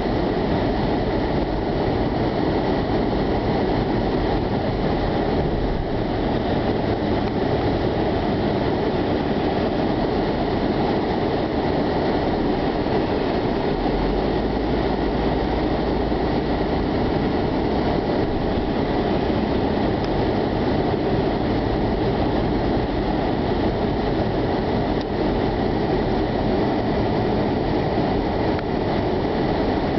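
Blizzard wind blowing hard and steadily, a constant rushing noise with no let-up.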